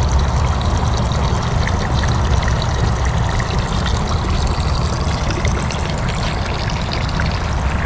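Water steadily pouring and trickling from a concrete garden fountain, fed by a small submersible pump, with a steady low rumble underneath.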